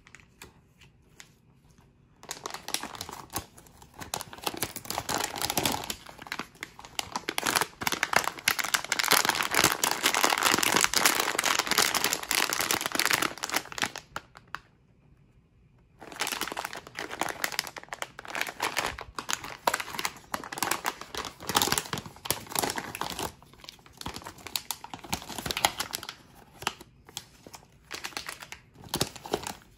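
Plastic packaging of an instant noodle kit crinkling as its sachets and bags are handled and laid out. It comes in two long stretches with a short pause about halfway through.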